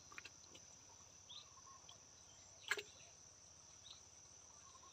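Crickets chirring faintly as a steady high thin tone, with a few faint short chirps and one sharp click a little past halfway.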